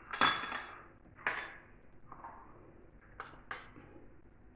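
Metal kitchen utensils clinking against a pan: a sharp ringing clink at the start, another about a second later, and two quick light ticks near the end.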